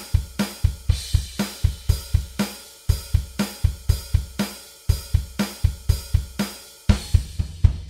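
Background music: a drum kit playing a steady beat of bass drum, snare and cymbals, about four hits a second, with a few short breaks.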